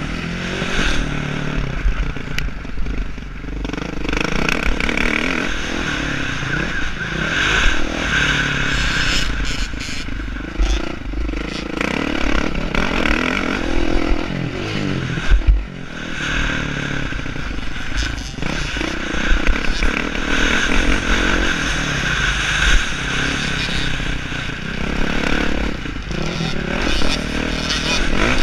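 Motocross bike's engine revving up and falling back again and again as it is ridden hard over a dirt track, with heavy wind rumble on the microphone.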